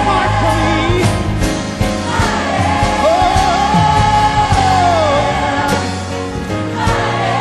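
Live gospel worship song: a woman's lead vocal holding long, gliding notes over a band and backing singers.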